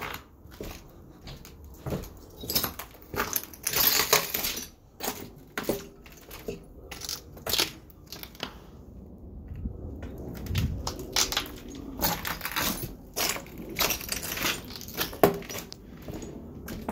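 Footsteps crunching over broken glass and grit on a concrete floor, at a walking pace of about two steps a second, with a short quieter stretch about two-thirds of the way through.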